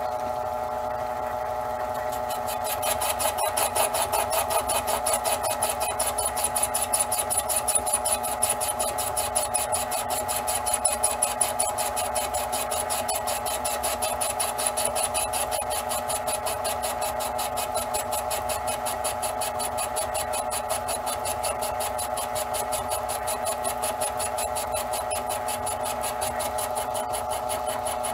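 Cowells 90ME small metal lathe running under its own motor with the automatic carriage feed engaged, the motor and gear train whirring steadily as the carriage traverses slowly. About three seconds in a fast, fine regular ticking joins the hum, a little louder for the next ten seconds or so and then steady.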